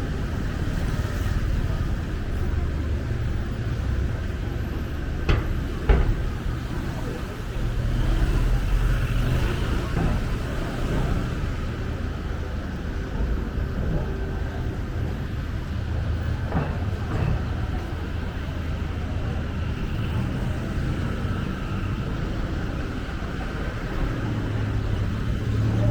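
Street ambience of road traffic: a steady low rumble of passing vehicle engines and tyres, with a couple of sharp knocks about five and six seconds in and a few more later.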